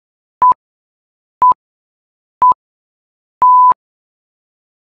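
Workout interval-timer countdown: three short identical electronic beeps a second apart, then a longer beep of the same pitch signalling the start of the next exercise.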